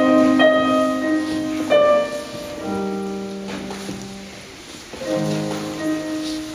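Digital stage keyboard with a piano sound playing slow, held chords, a new chord every second or so at first, fading away, then one more about five seconds in, echoing in a church.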